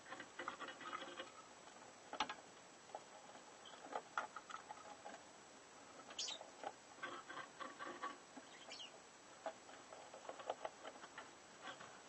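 Lovebirds in a nest box: faint quick runs of soft ticking chatter, with a short high chirp about six seconds in and another near nine seconds.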